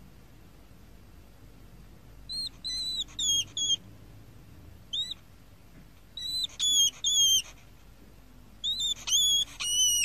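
Newborn hedgehog hoglet peeping: short, high-pitched squeaks in bunches of three or four, with pauses of a second or two between the bunches.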